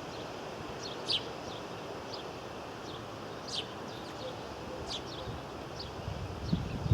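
Small birds chirping: short, high chips every second or so, a few louder than the rest, over a steady outdoor background hiss.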